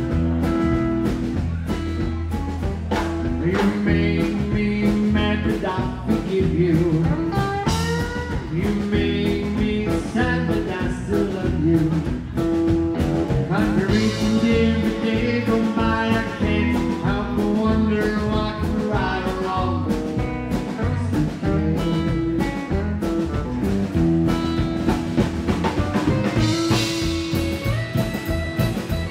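Live rockabilly band playing an instrumental break: Telecaster-style electric guitar lead lines over upright double bass, rhythm guitar and a steady drum-kit beat.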